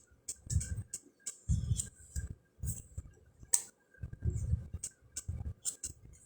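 Round fortune-telling cards being handled during a flip-through: repeated crisp clicks of card stock with soft low thuds as cards are shifted and set down.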